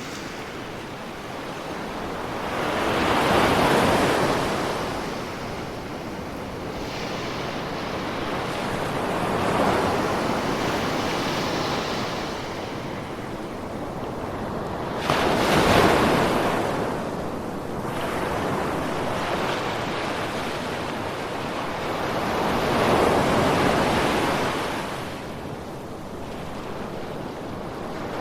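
Ocean surf: waves breaking and washing in, the rushing noise swelling and ebbing four times, roughly every six to seven seconds. The break about halfway through comes in suddenly and is the loudest.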